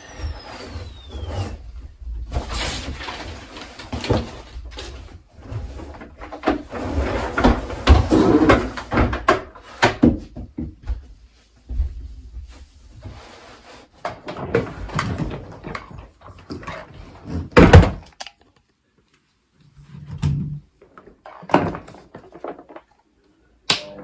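A Numatic Hetty cylinder vacuum's motor winds down to a stop about a second in. Then come irregular knocks, thumps and rustling as the switched-off vacuum, its hose and things in the room are handled and moved, with one loud knock about three-quarters of the way through.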